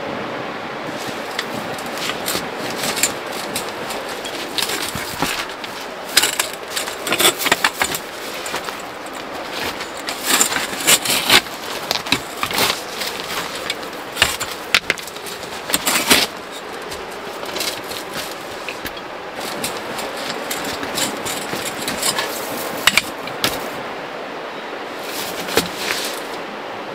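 Pebbles and gravel clicking and knocking as hands, feet and a camp chair's legs shift on a stony riverbed, in irregular clusters over a steady rushing background.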